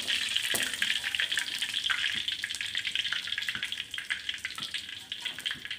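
Chicken pieces frying in hot oil in a wok: a steady sizzle full of small crackles, with clicks of a metal spatula against the wok. The sizzle eases a little near the end as the pieces are lifted out of the oil.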